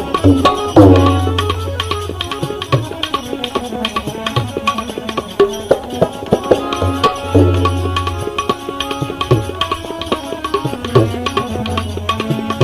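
Instrumental break in a Gujarati devotional bhajan: tabla playing quick strokes with deep, ringing bass strokes, over sustained melody notes.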